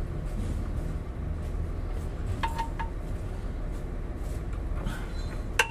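A wrench and socket clink against the bolts of a new clutch pressure plate on an Isuzu 4HK1. There are a few sharp metallic clinks, each with a short ringing tone: three close together about two and a half seconds in, and a louder one near the end, over a steady low rumble.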